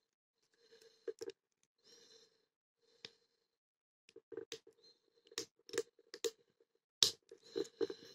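Metal lock-picking tools scraping and clicking inside a small Beorol padlock in irregular short bursts, with sharper clicks in the second half and the loudest about seven seconds in. The tools are being used in an attempt to bypass the lock.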